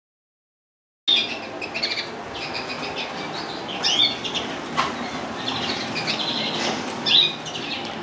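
Many small caged birds chirping and calling together over a steady background hiss, starting suddenly about a second in.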